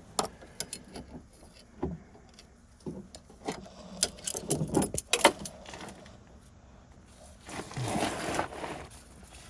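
Metal clicks and clinks of vice grips working a brake-line fitting, scattered irregularly with a quick run of them a little after the middle. A softer rustle follows about eight seconds in.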